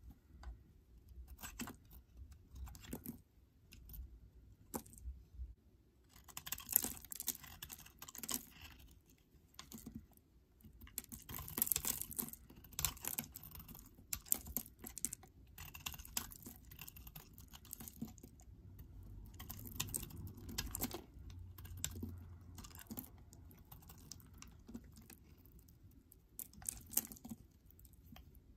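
Snap-off utility knife blade cutting into bars of soap: irregular clusters of crisp, crackling scrapes as curls and chunks break off.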